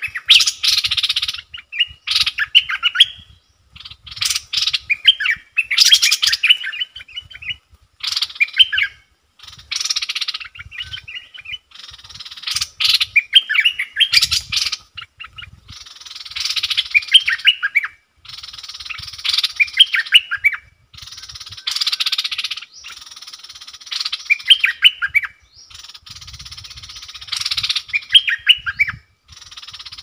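Bulbuls singing back and forth: short, quick runs of clear notes repeated every second or two, alternating with stretches of harsh rasping noise.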